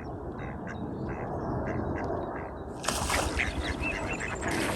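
Ducks on a pond quacking in a rapid run of short calls, about three a second. A louder rush of noise comes in about three seconds in.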